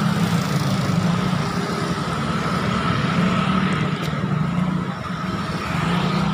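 Small motorcycle engine running steadily under way, with a constant rush of wind and road noise.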